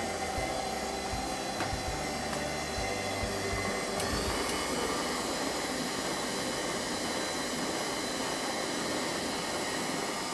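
Electric stand mixer running steadily as it beats cheesecake batter, with a click about four seconds in.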